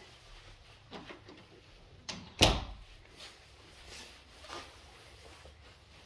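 An interior door closing with a sharp thump about two and a half seconds in, with a few fainter knocks and rustles around it.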